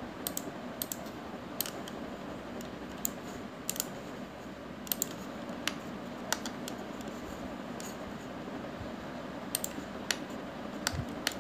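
Scattered sharp clicks of a computer mouse and keyboard, irregularly spaced, over a steady background hiss.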